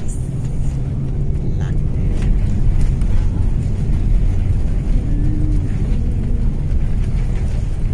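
Airliner cabin noise during landing: a loud, steady low rumble of engines and rushing air.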